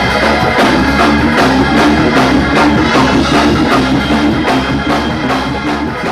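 Live praise band playing an up-tempo song, with a drum kit keeping a fast, steady beat under the other instruments.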